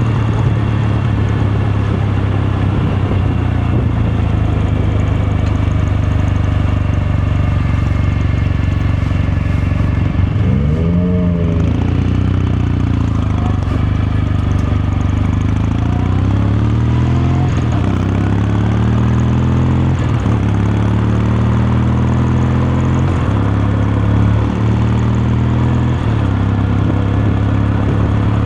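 Kawasaki Meguro K3's air-cooled 773 cc parallel-twin engine and exhaust running on the move. The revs rise and fall once about eleven seconds in, then climb in steps through a couple of gear changes.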